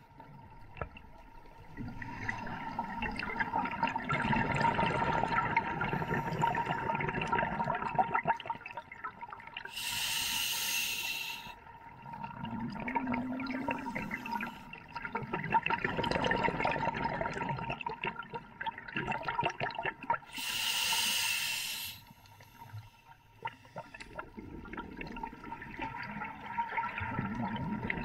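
Scuba regulator breathing underwater: long stretches of exhaled bubbles gurgling and crackling, broken twice by a short hissing inhalation, once near the middle and again about three-quarters of the way through.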